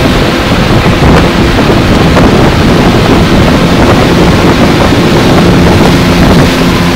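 Outboard motor running steadily at speed under the rush of the churning wake, with heavy wind buffeting the microphone.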